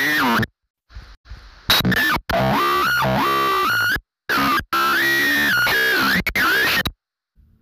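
Loud music with a melody line that wavers up and down, cutting out abruptly into silence several times and stopping short near the end.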